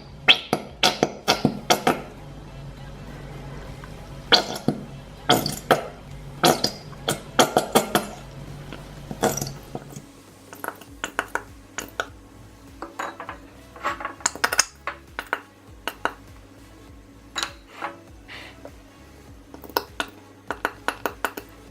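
Light irregular clicks and clinks of a clear glue bottle and a bowl being handled while glue is poured, with quiet background music coming in about halfway.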